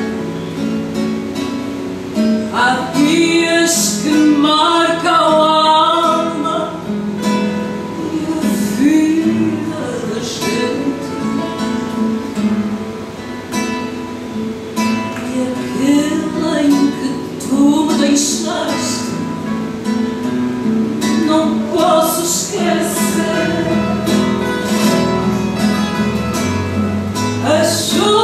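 A fado song: a woman singing phrases over a Portuguese guitar and two guitars plucking a steady accompaniment.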